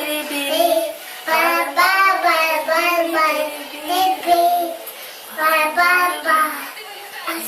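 A two-year-old child singing a wordless, syllable-chant song ("bara-bara", "beri-beri") in a high voice, in short phrases with brief pauses between them.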